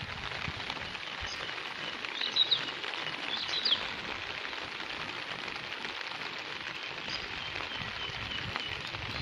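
Steady hiss of falling rain, with a bird chirping in short bursts, loudest between about two and four seconds in.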